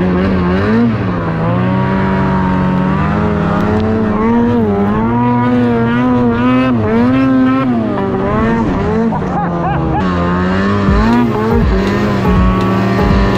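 Mountain snowmobile engine revving up and down as the sled ploughs through deep powder, its pitch rising and falling with the throttle. It eases off about ten seconds in, then runs steadier.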